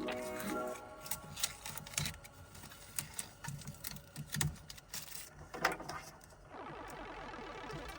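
Irregular light clicks and taps of hand work, between stretches of background music at the start and again from about six and a half seconds in.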